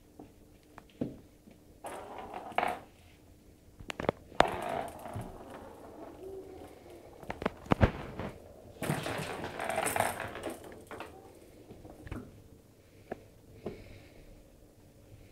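Scattered taps and knocks, with a sharp knock about eight seconds in and a few short bursts of rustling: household handling noise as a baby crawls on a laminate floor and the camera is moved about.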